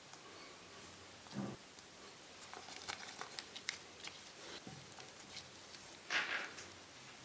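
Crisp lettuce leaves crinkling and rustling as they are handled and laid onto a sauced burger bun, with scattered small clicks and a soft knock about a second and a half in; the loudest crisp rustle comes about six seconds in.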